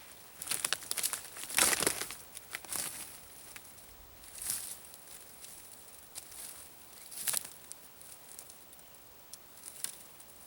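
Irregular crinkling and rustling close to the microphone, loudest about two seconds in, followed by a few shorter separate rustles.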